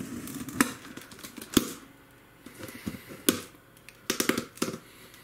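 Packing tape on a cardboard box being sliced with a serrated knife and the taped flaps pulled open: a string of separate sharp clicks and snaps, bunched together near the end as the flaps come up.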